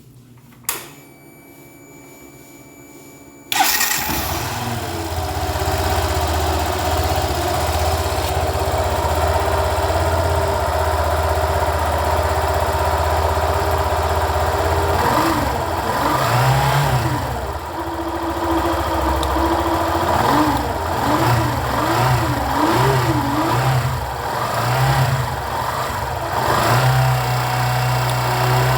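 Yamaha Fazer 150 motorcycle's single-cylinder four-stroke engine: a click, then it starts about three and a half seconds in and idles, revved up and down in several short blips later on. The engine makes a growling noise that the mechanic puts down to a faulty stator needing replacement.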